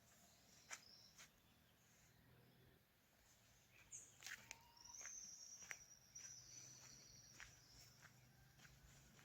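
Faint countryside ambience: scattered clicks, and a high, thin call held for about three seconds from the middle of the stretch.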